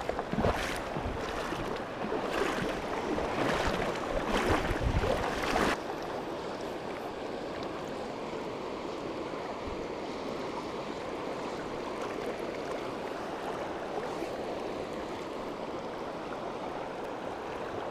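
Shallow river current rushing steadily over a rocky bed. For the first six seconds it is louder and uneven, then it cuts abruptly to an even, quieter rush.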